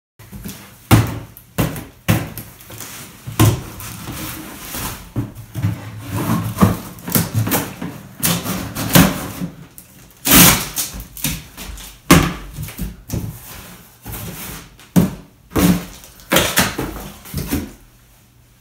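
Sword blade hacking and scraping at a cardboard shipping box: a string of irregular knocks, thuds and scrapes, with a few sharper, louder hits about ten and twelve seconds in.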